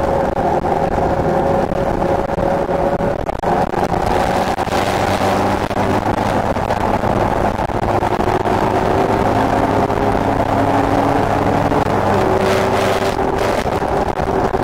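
Motorcycle engine running while riding at road speed, a steady drone whose pitch drifts slightly up and down as the speed changes.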